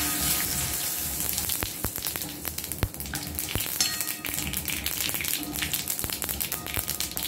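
Mustard seeds and cumin spluttering in hot ghee with curry leaves and asafoetida: a steady sizzle dotted with many small sharp pops. This is the tempering (tadka) stage of a South Indian stir-fry.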